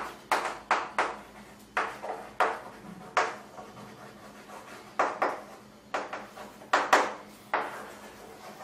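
Chalk writing on a chalkboard: an irregular run of sharp taps and short scraping strokes, with a pause of about a second and a half midway.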